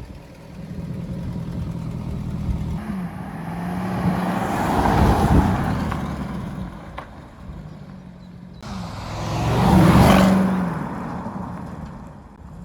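A car going past twice: engine note and tyre rush swell to a peak and fade away, the second pass starting abruptly about nine seconds in.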